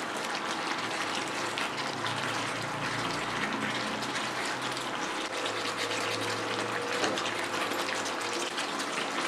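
Chicken in a thick green gravy sizzling and bubbling steadily in a non-stick pan on an induction cooktop, with a fine crackling hiss as a wooden spatula stirs the spices in. A faint steady low hum runs underneath.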